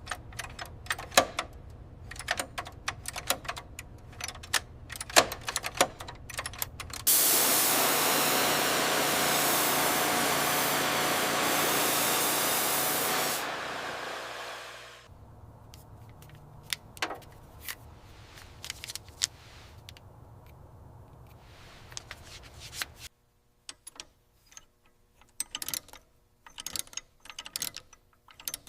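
Light clicks and taps of hand work, then a loud steady spray hiss for about six seconds that fades away, followed by sparser clicks and knocks.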